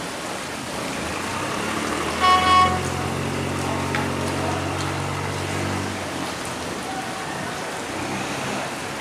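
Water rushing through the sluice gate, with a boat engine running at a low, steady pitch from about a second in until about six seconds. A short horn toot about two seconds in is the loudest sound.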